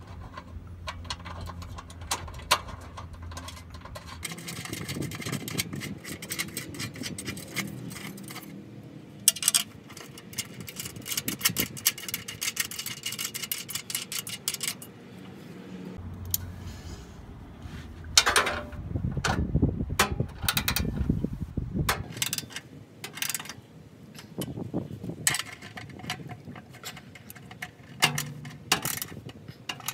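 Metal clinks and clicks from bolts, a steel evap canister relocation bracket and a ratchet wrench as the bracket is fitted and tightened to a Jeep Wrangler's frame. A louder low rumble rises for a few seconds past the middle.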